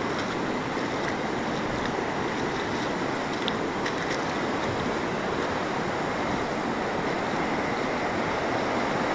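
A swollen river in flood rushing steadily, a continuous noise of fast water that grows a little louder near the end.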